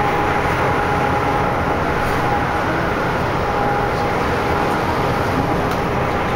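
Steady road and engine noise heard from inside a vehicle travelling at expressway speed, an even rumble and hiss with a faint steady whine above it.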